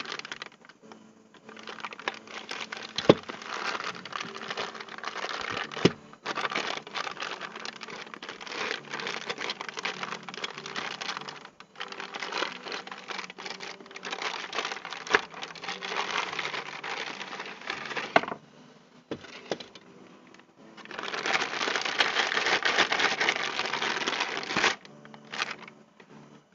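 Plastic packaging crinkling as it is handled in long stretches, with a few sharp clicks and knocks.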